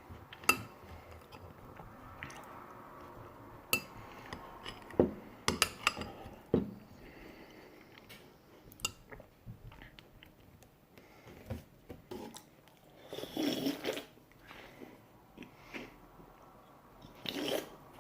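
Cutlery clinking and scraping against a cup while baked beans are scooped out and eaten, with chewing. There are scattered sharp clicks every second or so, then short busier spells of scraping and eating near the end.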